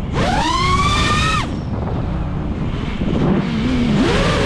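FPV quadcopter's brushless motors whining as the throttle is worked through a flip and dive. The whine rises in pitch, drops away about a second and a half in, leaving rushing air and rumble, and builds again near the end as the quad pulls out.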